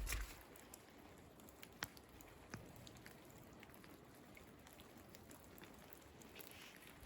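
Near silence: faint raindrops dripping, a soft steady hiss with scattered ticks, two sharper ones about two seconds in.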